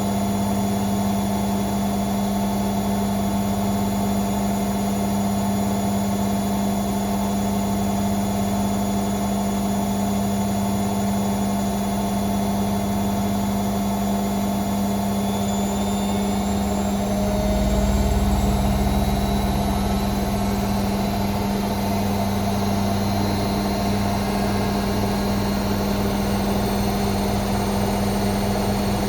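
Hoover Sportswear 1300 washing machine in its fast spin, the drum turning at a steady high speed with a constant motor whine. About two-thirds of the way through, a low rumble of vibration swells for a few seconds and then settles.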